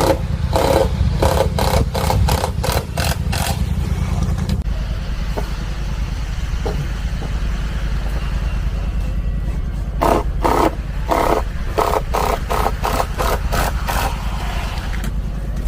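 Engine of construction equipment running steadily, with two stretches of rapid, evenly spaced clattering strikes, one at the start and one about ten seconds in.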